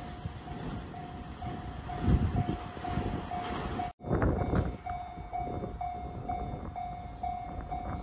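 Japanese level-crossing warning bell ringing about twice a second, the signal of an approaching train. It breaks off in a brief dropout about four seconds in, and low rumbles rise and fall beneath it.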